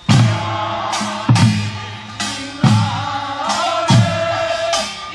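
Korean traditional farmers' folk song sung by a group over traditional percussion, with a loud drum stroke about every 1.3 seconds.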